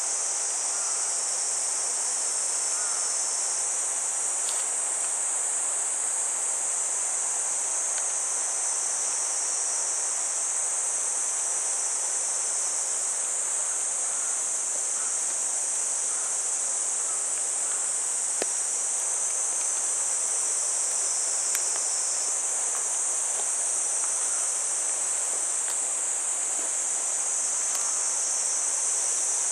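Insects in a forest singing in a steady, high-pitched chorus that does not let up, with a few faint ticks scattered through it.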